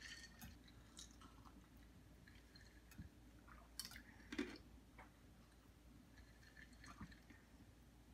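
Faint sounds of an iced drink: ice clinking in a glass as it is sipped, then ice being chewed with small crackling clicks, with a couple of louder clicks and a short knock about four seconds in.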